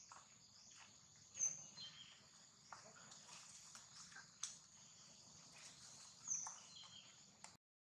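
Faint outdoor ambience: a steady high insect drone with light rustling clicks in leaves and grass. Two short high chirps falling in pitch come about a second and a half in and again about six seconds in. The sound cuts off to silence just before the end.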